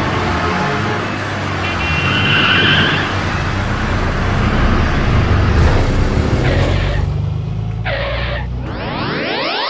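Cartoon motor-vehicle sound effects: a steady engine rumble under a hiss, with short horn-like tones about two seconds in and twice more near the end. Music with sweeping tones starts just before the end.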